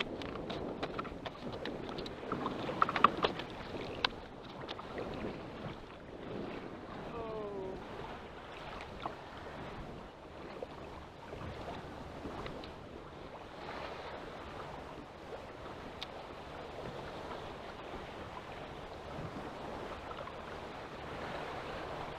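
Choppy sea water sloshing and lapping against a small paddle craft, with wind on the microphone. A few sharp knocks and clatters on the boat come about three to four seconds in.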